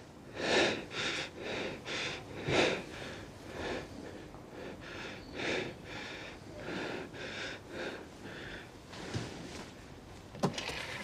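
A man panting hard and fast, about two ragged breaths a second at first, then slower and softer. A couple of sharp clicks come near the end.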